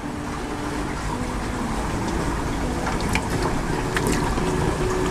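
Steady rushing water and bubbling from a large aquarium's water circulation and aeration, with a low hum under it and a few faint clicks about three to four seconds in.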